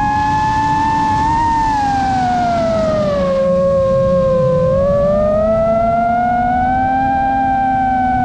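Brushless motors and propellers of an FPV quadcopter whining loudly, heard from the drone's onboard camera. The pitch sinks over about two seconds as the motors slow, then climbs back to a steady whine, with rushing air underneath.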